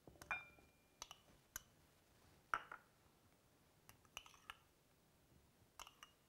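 Light clicks and clinks of a spoon and small pieces of potato and carrot against a glass mixing bowl, about a dozen scattered taps. One near the start rings briefly, and the loudest comes about two and a half seconds in.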